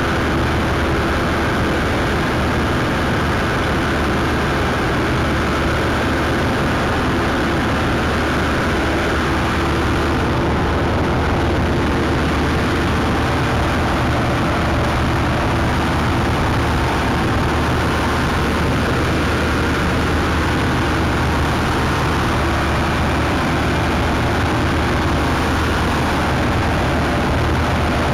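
Combine harvester running steadily while cutting grain: a constant, unchanging drone of its engine and working machinery.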